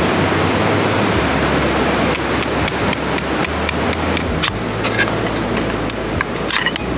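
Irregular sharp taps and clicks of hard objects being knocked or handled, a few with a short ringing tone, over a steady rushing background noise.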